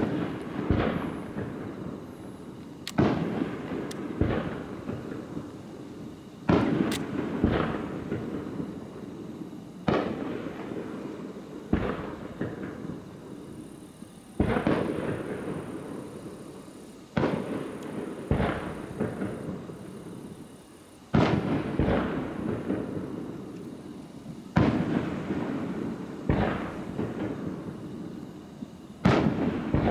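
Aerial firework shells bursting in quick succession, a boom every one to three seconds, each trailing off in a long echoing rumble.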